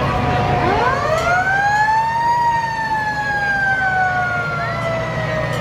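Vintage fire engine's siren winding up over about two seconds, then slowly falling in pitch. A second siren tone comes in near the end.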